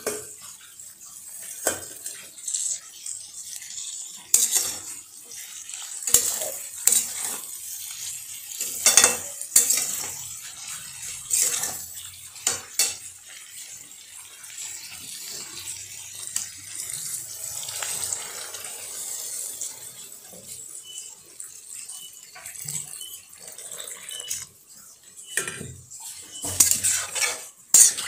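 Metal spatula scraping and knocking against a wok while fish pieces with curry leaves are stirred, over a steady sizzle of frying. The knocks come at irregular intervals and are busiest near the end.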